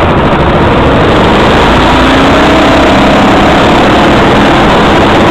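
Loud, steady running of a small gasoline go-kart engine heard up close from the kart itself as it rolls along the track. The engine note shifts slightly in pitch about halfway through.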